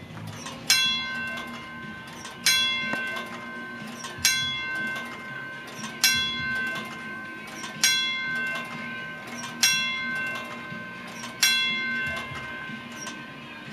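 Bell of a wigwag railroad crossing signal striking seven single strokes, about one every 1.8 seconds, each ringing out and fading before the next.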